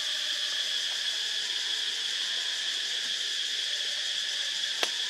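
Steady high-pitched drone of an insect chorus, unbroken throughout, with one sharp click near the end.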